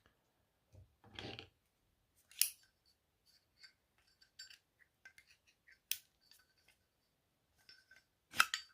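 Scattered light clicks and taps of a Zippo lighter's small metal parts being handled as a rubber seal is fitted, with a soft rustle about a second in.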